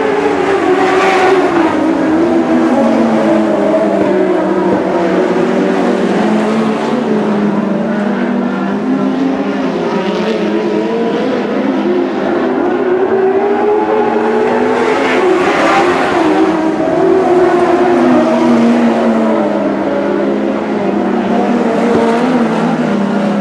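Several winged sprint cars' engines racing on a dirt oval, revving up and down through the turns lap after lap. They are loudest as they pass about a second in and again about two-thirds of the way through.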